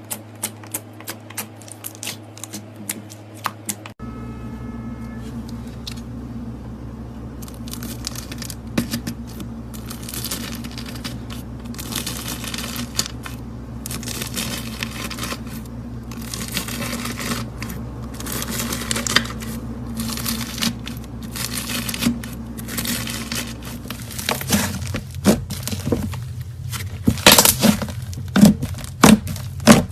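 Slime being squeezed and worked by hand. It starts with a rapid run of small clicks, then after a cut gives crackly, crinkling squelches, and near the end louder sharp pops, all over a steady low hum.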